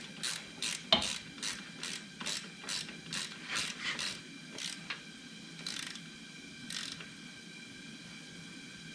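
Socket ratchet clicking as it tightens a motorcycle oil drain plug, about two to three clicks a second. Near the middle it slows to two last clicks and then stops.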